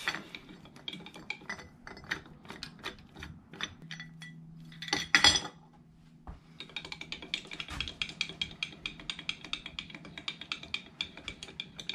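Hand crank of a rotating table being turned to swing the clamping fixture round, giving a long run of rapid small metallic clicks, with a louder metal clatter about five seconds in.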